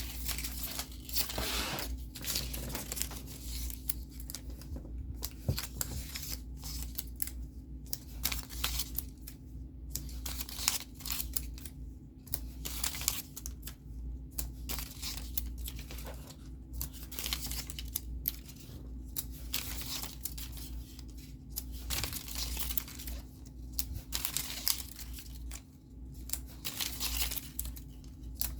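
Paper kit pieces being handled and sorted, rustling and crinkling in irregular bursts throughout, over a steady low hum.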